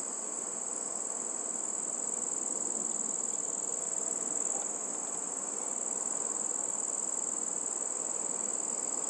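Faint swishing of a steel ladle stirring fermented wheat milk in a steel pot, under a steady high-pitched whine.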